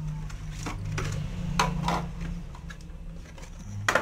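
Hands handling an action camera's box and hard plastic packaging: a few scattered clicks and knocks, the sharpest near the end, over a steady low hum.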